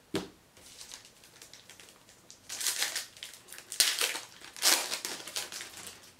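Foil wrapper of a 2018 Panini Elite football card pack crinkling and tearing as it is pulled open by hand, in several bursts, after a short tap at the start.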